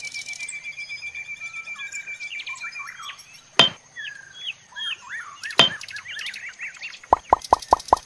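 Birds chirping: a steady trill, then scattered rising and falling chirps, with two sharp taps in the middle. Near the end a fast, even series of plops begins, about six a second.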